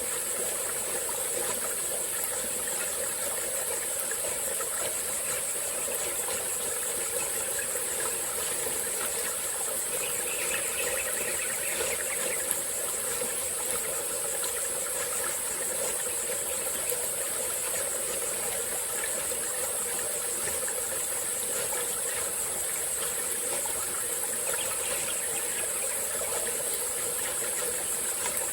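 Small tropical-forest stream flowing steadily, with a continuous high-pitched insect chorus over the water.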